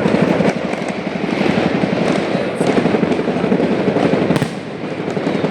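Fireworks going off: a loud, continuous rapid crackle of many small bursts, with one sharper bang about four seconds in.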